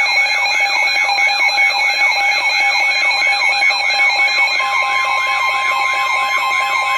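A weather radio receiver's alert siren, a warbling tone that sweeps up and down about three times a second over steady beeping tones, sounding for a severe thunderstorm warning. About four and a half seconds in, a steady single-pitch warning tone joins it.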